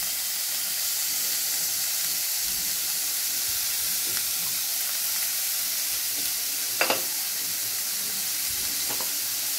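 Sliced onions sizzling steadily in hot oil in a kadai. A few sharp clicks break through, two close together about seven seconds in and another near the end.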